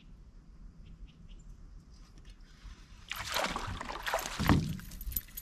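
A small hooked bass thrashing and splashing at the water's surface while being reeled in, a burst of splashing starting about three seconds in with its loudest splash a second or so later.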